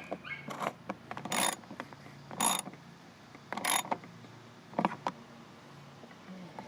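Three short bursts of mechanical clicking and rattling about a second apart, then a single sharper click about five seconds in: tools and plastic door-trim parts being handled and fitted back in place.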